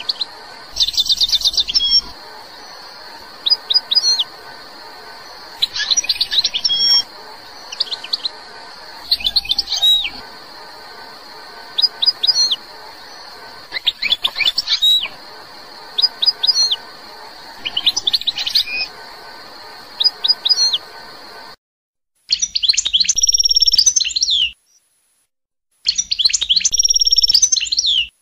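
An Algerian goldfinch (the North African race of the European goldfinch) singing: short, bright twittering phrases of rapid trills and slurred notes, about every two seconds, over a faint steady hiss. After about 21 seconds the hiss stops, and two longer, fuller bursts of song follow with silence between them.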